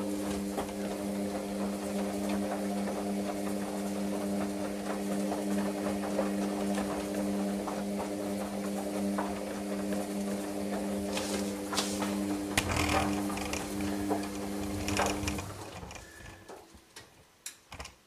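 Hoover Dynamic Next 8 kg washing machine running during its wash: a steady mechanical hum with scattered clicks and knocks. The hum stops about fifteen seconds in, leaving only a few faint knocks.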